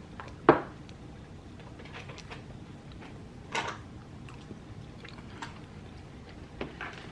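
A few short clicks and knocks of cutlery against plates during a meal, the sharpest about half a second in and another around three and a half seconds, over quiet room noise.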